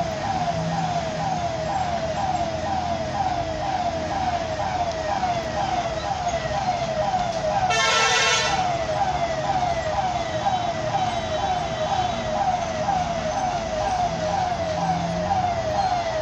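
Electronic warning siren wailing in a falling tone repeated about two and a half times a second, steady throughout, over the low running of heavy trucks. A single horn blast of about a second cuts in about eight seconds in.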